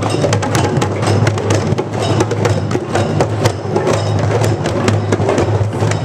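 A group of children playing djembes and other hand drums together, a dense, continuous drumming of many hands striking the drum heads.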